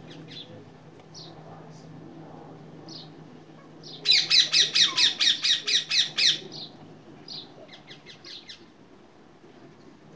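Ring-necked parakeets calling: a loud, rapid run of harsh squawks, about six a second for two seconds, starting about four seconds in, with scattered short chirps before and after.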